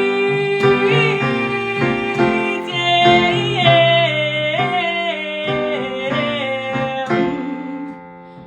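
Acoustic guitar strummed under a wordless sung vocal line with vibrato, which dies away near the end.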